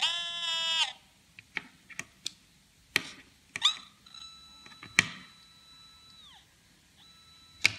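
Homemade PI Polonez pulse-induction metal detector sounding through its small speaker: a short buzzy beep at the start, then scattered clicks and a faint steady tone that drops in pitch and cuts off. The sound is very weak because the 10k volume potentiometer is wired wrongly.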